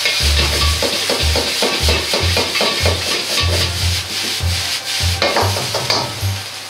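A metal ladle scrapes and stirs fried rice around an iron wok over a high gas flame, in quick repeated strokes, with the rice sizzling steadily and tossed in the pan.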